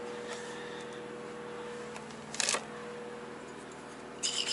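Things being handled at a drawer fridge: a sharp clack about halfway through and a short rattle near the end as a glass bottle is taken out, over a steady electrical hum.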